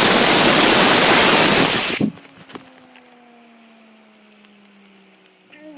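A blast of compressed air from an air compressor's nozzle hisses loudly for about two seconds and cuts off suddenly. A fidget spinner then whirs on its own as a steady hum whose pitch slowly falls while it spins down.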